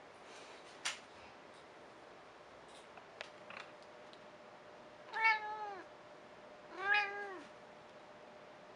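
A domestic cat meows twice, about a second and a half apart, each call short with its pitch rising then falling. A single sharp click comes about a second in.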